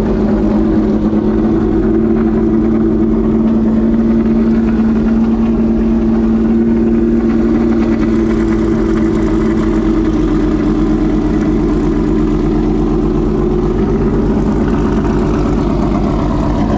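A race car engine idling steadily: an even, pitched hum with a fast pulse, holding nearly the same speed throughout.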